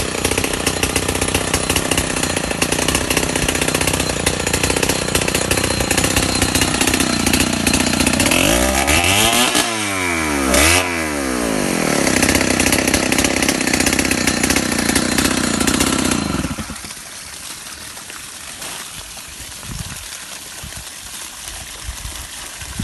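A loud engine running steadily, its pitch dropping and climbing twice near the middle as it slows and speeds up, then cutting off suddenly about 16 seconds in, leaving a quieter steady background noise.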